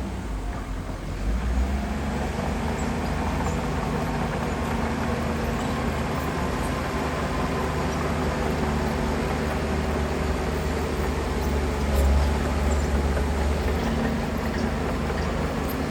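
Heavy diesel engine of earthmoving machinery running steadily, with a brief swell in level about twelve seconds in.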